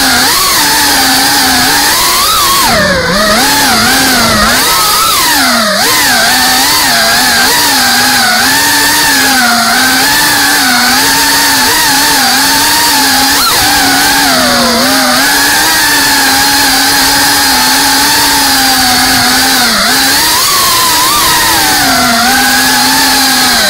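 FPV quadcopter's electric motors and propellers whining, the pitch wavering up and down with the throttle and dipping sharply a few times as the throttle is pulled back.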